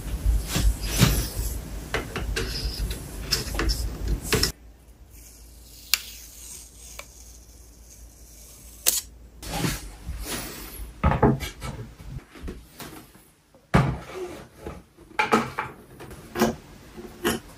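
Hands handling the plastic parts of a 3D printer: scattered clicks, knocks and rustles. There is a dense run of rumbling handling noise in the first four seconds, a quieter stretch in the middle, and clicks and knocks near the end as the spool-holder parts are fitted together.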